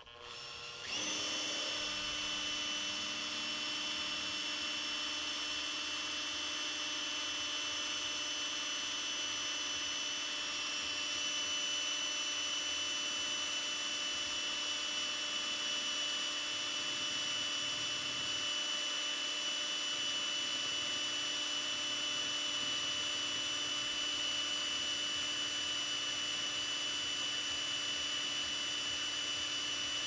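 Makita cordless drill drilling a hole into the metal of a small milling machine. The motor starts about a second in and then runs at one steady speed with a constant whine.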